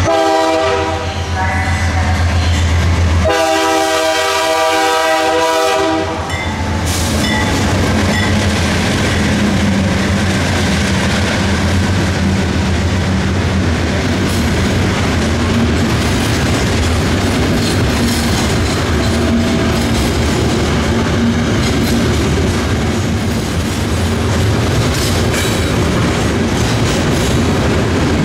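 Diesel freight locomotive sounding its horn at a grade crossing, one blast ending about a second in and a longer one from about three to six seconds in, then the locomotive's engine running past and a string of covered hopper cars rolling by with a steady clickety-clack of wheels over rail joints.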